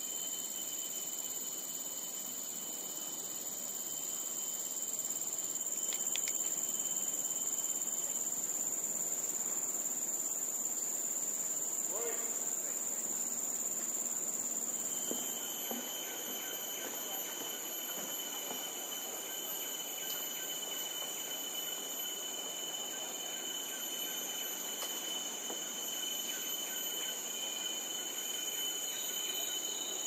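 A chorus of insects buzzing without a break, several steady high-pitched tones held together. One tone fades and a lower one joins about halfway through, over a soft even hiss.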